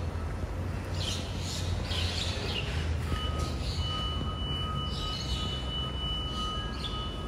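BYD electric garbage truck running with a low steady hum. A steady high whine of two pitches joins about three seconds in, with a few short clatters before it.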